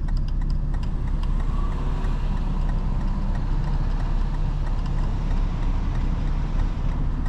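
Steady low drone inside the cabin of a BMW 435i, its turbocharged N55 inline-six engine and the car's road noise, with no rise or fall in pitch.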